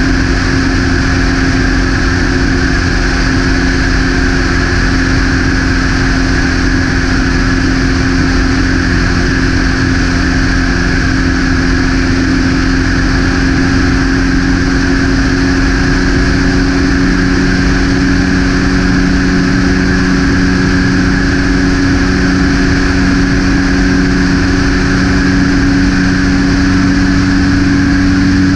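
Light propeller aircraft in cruise flight: its engine and propeller drone steadily and loudly, the pitch creeping up slightly in the second half.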